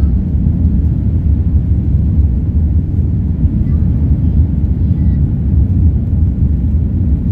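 Jet airliner cabin noise during the takeoff climb: a loud, steady low rumble of the engines and rushing air, heard from inside the cabin at a window seat.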